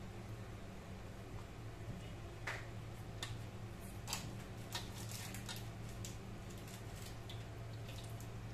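Faint wet squishes, drips and small clicks, mostly in the middle, as a chapati is dipped in a bowl of egg and coconut-milk mixture, over a low steady hum.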